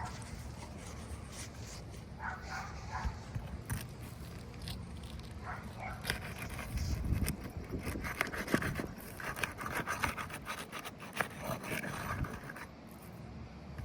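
Scraping, with many clicks and knocks, as roof shingles are worked loose by hand.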